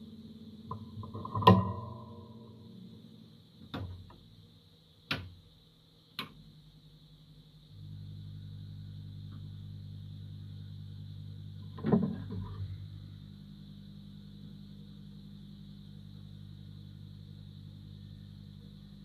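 Steady low electrical hum, stepping up in level about eight seconds in, with a handful of sharp clicks and knocks from handling on the workbench; the loudest knocks come about a second and a half in and near twelve seconds.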